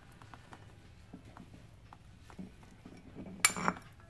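A few faint light taps, then about three and a half seconds in a metal spoon clinks sharply and scrapes against a volcanic-stone molcajete holding salsa.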